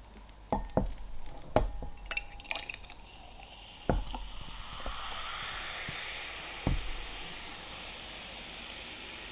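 A few knocks and clicks of a can and glass being handled, then carbonated diet lemonade fizzing steadily as it is poured into a glass.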